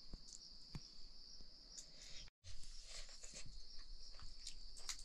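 Crickets chirping in a steady high-pitched chorus, with small scattered clicks and taps from hand-eating off a steel plate; the sound cuts out for a moment about halfway.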